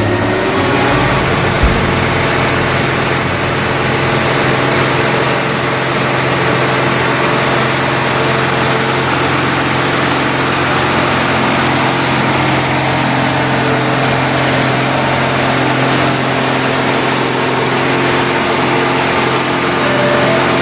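Shaktiman truck's diesel engine running at a steady speed, a constant drone with road and mechanical noise over it.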